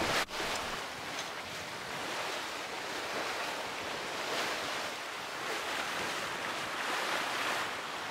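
Wind and sea rushing past a sailing yacht moving briskly under sail in a stiff breeze, with wind buffeting the microphone. The hiss swells and eases every second or two as the waves pass.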